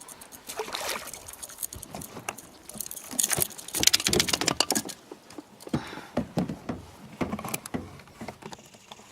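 Hooked crucian carp being brought in and handled in the boat: quick irregular clicks, flaps and rustles, thickest about three to four seconds in.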